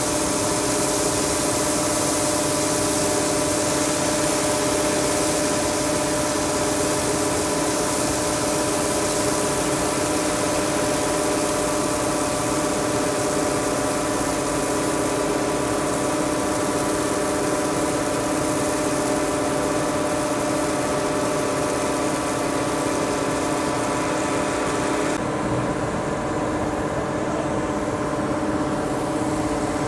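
Engine running steadily with an even hum, under a hiss of gravel pouring off a conveyor chute into a barge's hold. About 25 seconds in, the hiss stops abruptly while the engine hum carries on.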